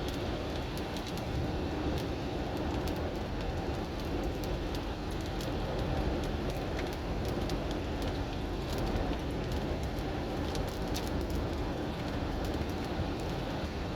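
Car driving in the rain: steady rumble of engine and tyres on the wet road, with scattered sharp ticks of raindrops striking the car.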